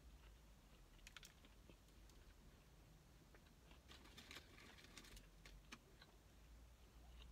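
Near silence, with faint scattered clicks and a soft crackling rustle about four seconds in, as food packaging is handled.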